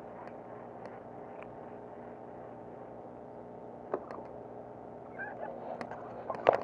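Faint steady hum of a distant engine, with a few light clicks, a sharper click about four seconds in, and a cluster of clicks and knocks near the end.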